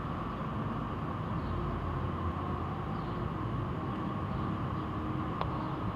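Steady street background: a low engine rumble with a constant hum, and one short click about five and a half seconds in.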